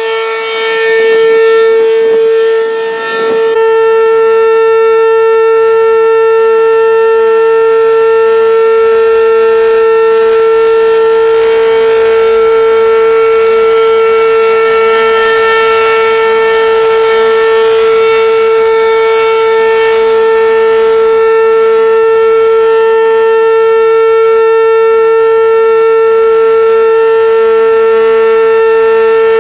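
ACA P-15 outdoor warning siren sounding its Alert signal: one loud, steady tone held at constant pitch, with a brief dip in loudness about three seconds in.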